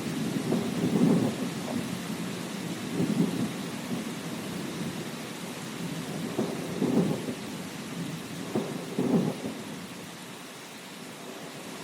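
Steady rain with thunder rumbling in low, rolling swells that come and go several times, the rumble dying away near the end.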